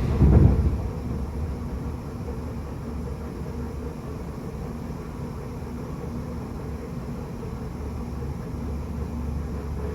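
Tokyo Metro 8000 series electric train running, heard from inside a motor car: a steady low rumble of wheels on rail, after a brief loud burst right at the start.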